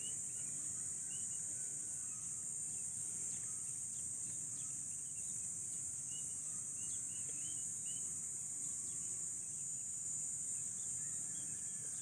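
Insects droning steadily at a high pitch, with scattered short bird chirps over it.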